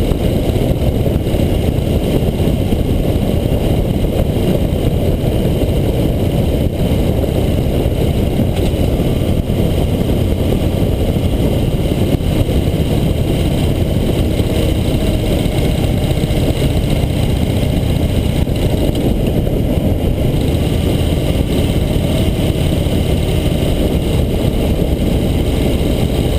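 Harley-Davidson V-twin motorcycle cruising at steady speed: a constant low engine rumble heavily mixed with wind rushing over a bike-mounted camera's microphone.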